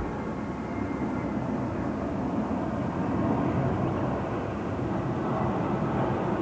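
Jet engines of an Airbus A380-841 on final approach: a steady jet noise, strongest in the low range, growing slowly louder as the airliner comes closer. A faint thin whine can be heard in the first couple of seconds.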